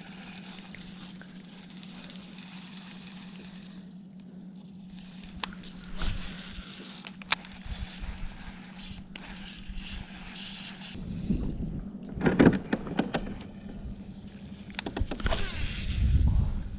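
The electric trolling motor of an Old Town AutoPilot 136 kayak humming steadily on one low tone. Scattered sharp clicks are heard around the middle, and two louder rumbling bursts come about two-thirds of the way through and near the end.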